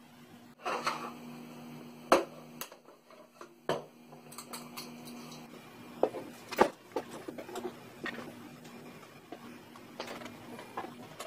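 Scattered clicks, taps and knocks of plastic coffee maker housings and small parts being unscrewed and handled with screwdrivers, with a sharper knock about two seconds in and another about six and a half seconds in, over a faint steady hum.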